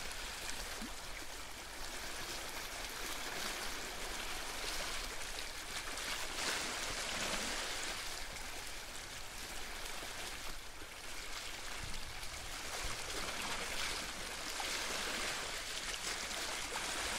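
Steady rushing outdoor ambience, an even hiss that swells and fades gently.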